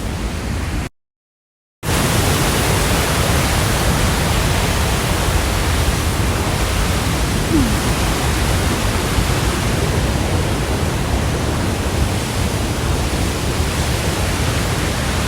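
Waterfall, a steady rush of falling water, drops out to silence for about a second near the start.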